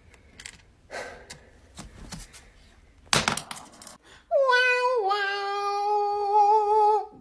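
A domestic cat gives one long, drawn-out meow of nearly three seconds, dropping slightly in pitch partway through and then held steady. Before it there are soft taps and a short, loud knock about three seconds in.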